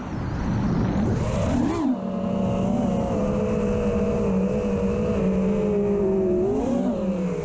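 FPV racing quadcopter's four Stout v3 brushless motors spinning Ethix P3 props, a steady whine during a cruise. The pitch swings up and back down sharply between one and two seconds in, then drifts slowly lower, and it rises briefly again near the end as the throttle is punched.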